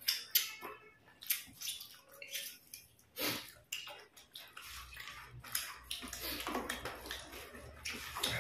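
Two people eating rice and chicken curry by hand, making short, irregular wet smacking and squishing sounds from mouths chewing and fingers mixing rice on plates.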